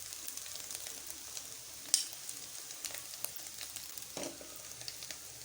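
Vegetables, egg and chicken pieces frying in oil in a pan on low heat: a steady, quiet sizzle with scattered small crackles. A single sharp clink about two seconds in.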